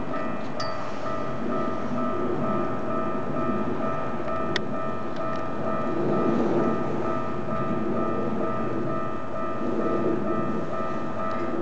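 Japanese level-crossing warning bell ringing in an even pulsing 'kan-kan' while a Keikyu Daishi Line electric train rumbles past over the crossing, its rumble swelling twice. A brief high wheel squeal just after the start and a sharp click midway.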